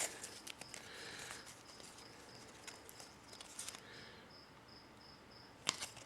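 Trading cards being handled and flipped: soft rustles and light clicks, with one sharper card snap near the end. A faint, even high-pitched chirp repeats about three times a second behind it.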